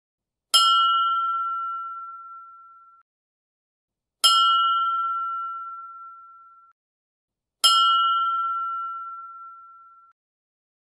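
A bell struck three times, evenly spaced about three and a half seconds apart, each stroke a clear ringing tone that fades away over two to three seconds.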